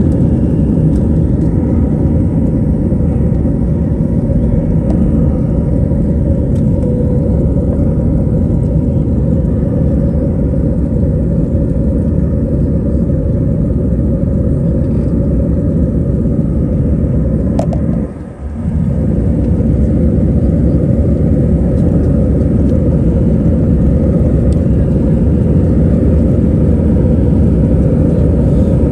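Airbus A321 airliner's jet engines and airflow heard as a loud, steady low rumble inside the cabin during takeoff and climb. The rumble briefly dips about eighteen seconds in, just after a faint click.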